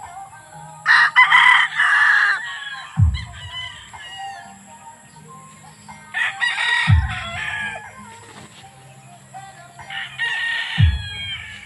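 Gamefowl roosters crowing, with three loud crows about a second in, midway and near the end, and smaller calls and clucks from the flock in between.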